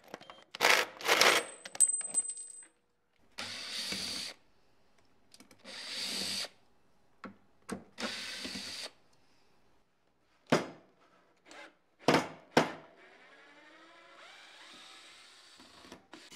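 Workshop handling sounds: sharp clicks and clinks of small metal parts, three separate hissing bursts of about a second each, then a few sharp knocks and a faint rising whirr near the end.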